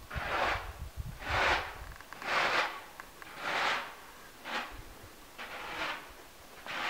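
Footsteps crunching through deep fresh snow at a slow, even walking pace, about one step a second.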